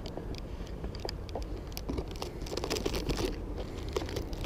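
Clear plastic food tub being handled close to the microphone: irregular crinkling and small clicks, getting busier about halfway through, over a low steady rumble.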